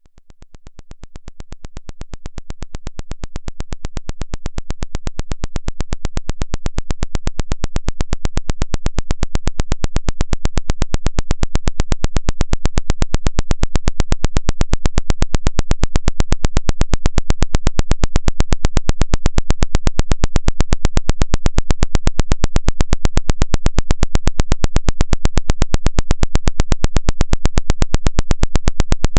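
Synthesized 'water eject' vibration tone: a buzz pulsing rapidly and evenly, with strong deep bass, that fades in over the first several seconds and then holds steady and loud.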